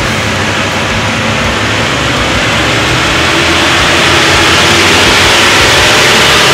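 Toyota LandCruiser 70 Series 4.5-litre V8 turbo-diesel, fitted with a GTX-470 turbo kit, running under load on a chassis dynamometer during a power run. The sound grows louder about three to four seconds in, and the revs are just starting to climb near the end.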